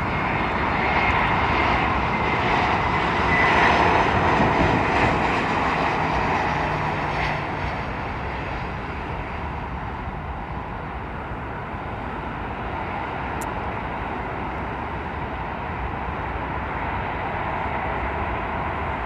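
Jet airliner passing on its landing approach: a loud rushing engine noise with a thin high whine, loudest about four seconds in, then easing off to a steady rumble as it moves away.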